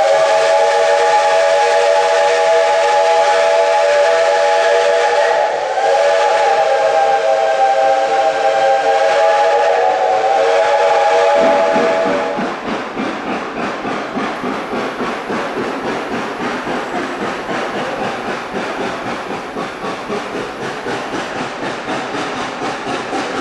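Steam whistle of 2-8-2 locomotive No. 190, its original USATC whistle, sounding a chord in two long blasts: a break about five seconds in, the second blast ending about twelve seconds in. After that the locomotive's rhythmic exhaust and hiss are heard as it works along the track.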